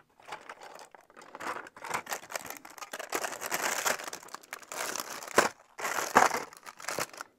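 Plastic Lego parts bags crinkling as hands rummage through a plastic storage bin of loose Lego pieces. There are small clicks and rattles throughout, and a couple of sharp clicks in the second half.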